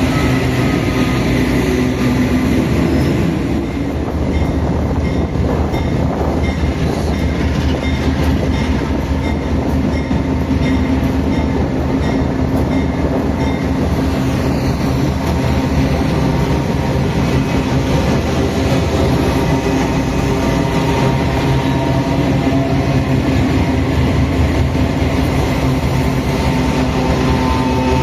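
Freight train led by a GE C44-9WM (Dash-9) diesel-electric locomotive running steadily: a continuous deep engine and traction-motor drone with steady low tones, and evenly spaced faint clicks through the first half.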